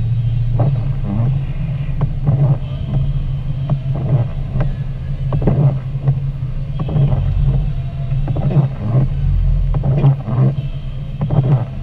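Car cabin driving noise on a wet road: a steady low engine and tyre hum, with irregular light taps and knocks over it.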